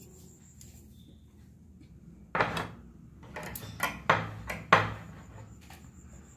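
A handful of sharp metallic clanks with short ringing, starting about two seconds in and loudest near the middle, from a steel wire microwave stand and a steel plate being moved and set down on the kitchen counter.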